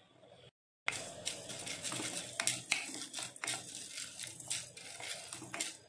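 Wooden spatula stirring coriander seeds, peppercorns and cumin seeds as they dry-roast in an iron kadai, the seeds rattling and the spatula scraping the pan in a run of small irregular clicks. It starts about a second in, after a short gap.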